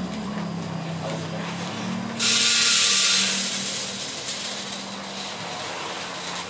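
Green Arabica coffee beans poured from a plastic bag into the metal hopper of a drum coffee roaster: a sudden loud rushing rattle about two seconds in that fades over the next few seconds, over a steady low hum.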